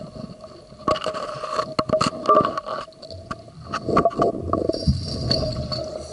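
Underwater sound of a scuba dive: irregular surges of bubbling and scattered clicks and knocks over a faint steady hum.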